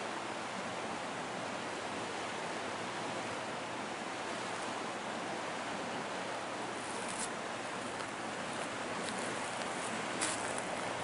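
Steady rushing noise with no clear pitch, with a few faint clicks in the last few seconds.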